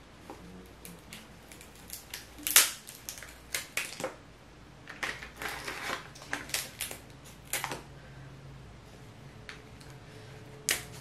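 Kitchen scissors cutting through a thick snow crab leg shell: a run of sharp, irregular cracks and snips, the loudest about two and a half seconds in, with a pause near the end.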